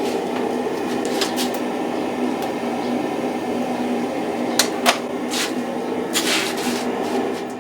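Forge burner running with a steady roar, the piece inside soaking at welding heat. Two sharp metallic clicks come about two-thirds of the way through.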